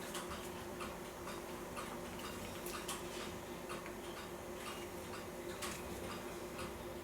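Light, irregular clicks and taps of small metal clock parts being handled and fitted during reassembly of the clock's time train, over a steady low hum.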